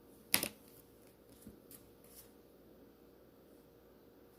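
Tarot cards being handled: one sharp card snap, then a few light clicks as cards are drawn and laid down.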